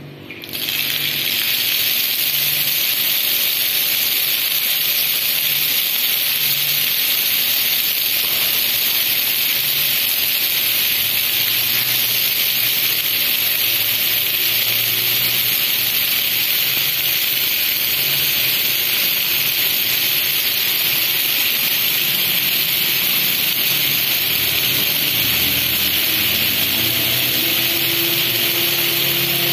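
Loud, steady hissing rush that starts suddenly about half a second in and holds level throughout, with faint low hums and tones underneath near the end.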